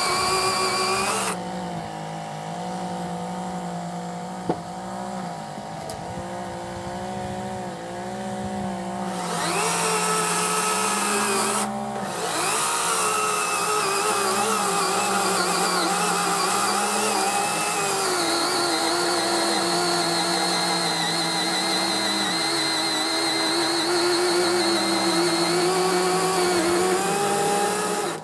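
Greenworks 40-volt battery-powered 16-inch electric chainsaw running and cutting through hard, salt-impregnated driftwood logs; the motor's whine repeatedly sags in pitch as the chain loads up in the wood, then recovers. It stops just at the end.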